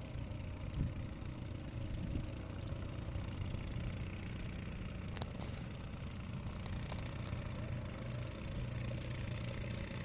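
An engine running steadily with a low, even hum, and a few faint clicks about five to seven seconds in.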